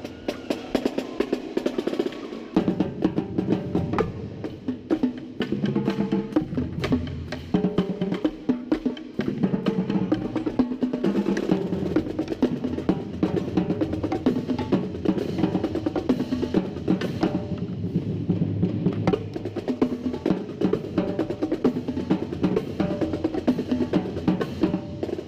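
Marching quads (tuned tenor drums), heard up close, playing a drumline cadence: fast, continuous sticking moving around the drums, with snare and bass drums under it.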